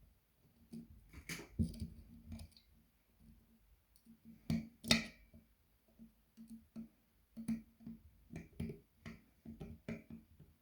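Irregular clicks and knocks of small hard parts being handled, with two louder knocks about a second and a half and five seconds in.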